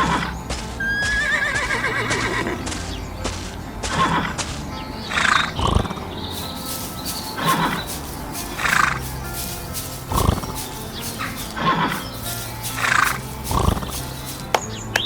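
A horse whinnying once early on, then a run of short animal calls about every second or two, over steady background music.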